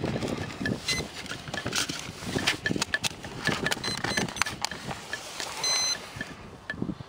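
Hands working on a foam RC plane: rubbing, rustling and small irregular clicks as the battery and wires are pushed into the hatch and the hatch and camera are pressed down. Wind is buffeting the microphone.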